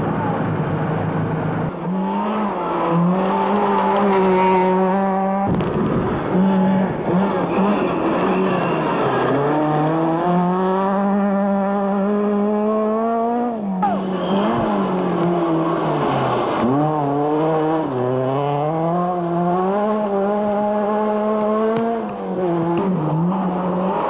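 Skoda Felicia Kit Car rally engine revving hard under acceleration, its pitch climbing through each gear and dropping sharply at every shift, over several runs.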